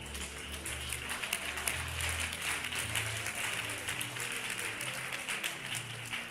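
Church congregation applauding, with low sustained music notes underneath.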